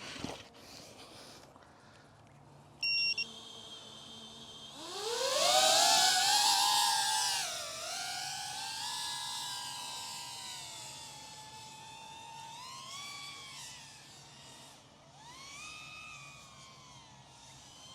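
A short electronic beep, then the iFlight ProTek35HD cinewhoop's brushless motors and ducted propellers spool up about five seconds in, a whine climbing sharply in pitch as it lifts off. The whine then goes on with its pitch rising and falling as the throttle changes in flight.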